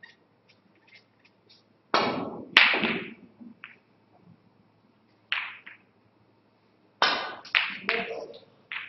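Snooker shot: the cue tip strikes the cue ball about two seconds in, and a sharp click follows as the cue ball hits an object ball. The balls then knock off the cushions, with a quick run of clicks and knocks near the end as balls strike each other and the cushions.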